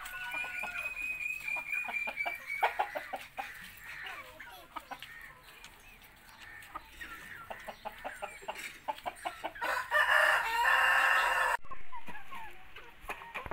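Country chickens clucking and calling, opening with a run of short repeated cackles, and a rooster crowing loudly about ten seconds in.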